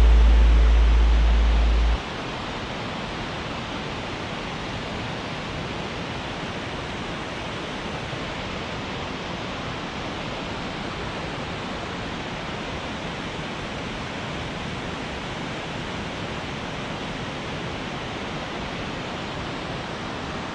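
Steady rush of a creek running far below in a canyon, an even hiss that does not change. For the first two seconds a louder deep low tone sits over it, then cuts off suddenly.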